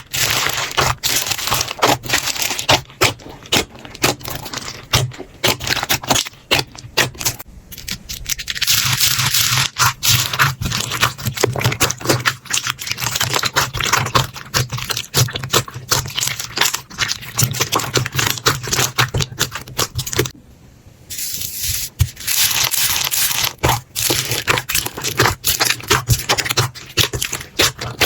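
Slime being squeezed and pressed by hand: a dense run of sharp crackling clicks and pops, with stretches of scraping hiss and a brief drop about twenty seconds in.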